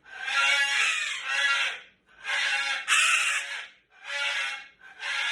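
Cockatoo screaming: four harsh, raspy screams in a row, the first two long and the last two shorter.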